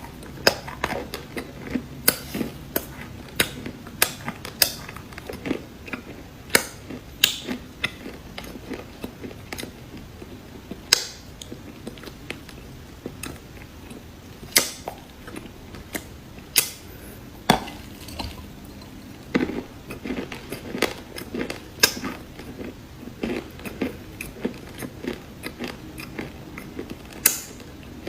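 Crunchy cookies being bitten and chewed close to the microphone: irregular sharp crunches, often a few each second.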